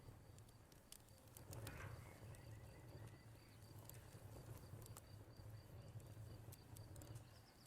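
Faint wood fire crackling with scattered sharp pops, over a cricket's steady pulsing chirp. A short bird call sounds about two seconds in.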